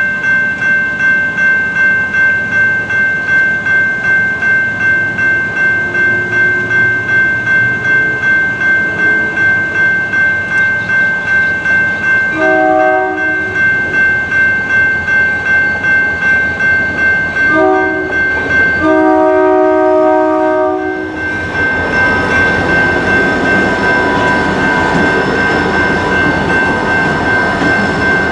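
A General Signals Type 2 electronic crossing bell rings steadily at about two strokes a second. About halfway through, a Union Pacific GP40-2 freight locomotive's horn sounds three blasts: one of about a second, a short one, then a long one. It then gives way to the loud rumble of the locomotives and train passing over the crossing.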